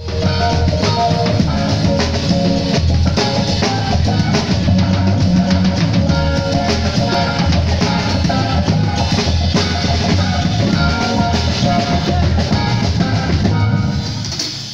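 Drum kit played busily under rock music, with pitched melodic notes over the drums; the music eases off in the last second or so.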